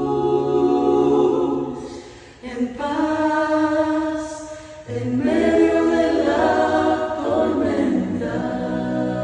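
A cappella choir singing a worship song in sustained, layered chords, with two short breaks between phrases.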